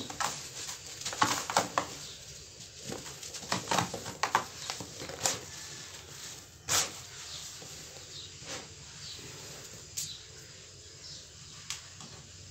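A dry sand-cement block crumbled by hand: dense crunching and crackling as it breaks apart, with grains falling onto a heap. The crunches thin out after about five seconds, leaving a soft hiss of pouring powder with a few scattered crackles.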